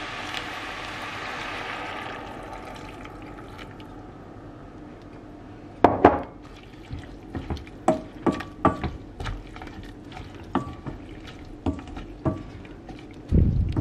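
Water running from a kitchen tap, dying away over the first few seconds. Then come a series of light clinks and knocks of kitchenware, some ringing briefly, and a heavier low thump near the end.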